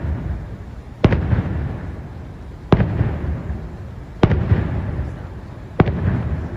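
Aerial firework shells bursting: four sharp booms about a second and a half apart, each trailing off in a rolling rumble.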